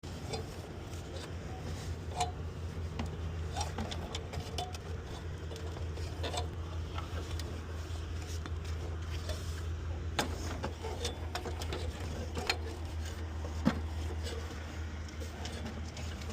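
A steady low machine hum with scattered light clicks and knocks over it.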